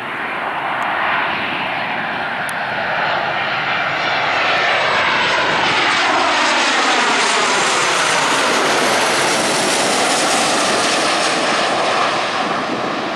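Boeing 737-800 airliner's CFM56-7B jet engines passing low overhead on landing approach. The loud rushing jet noise builds as the plane nears, peaks as it goes over with a falling sweep in pitch, then begins to ease near the end.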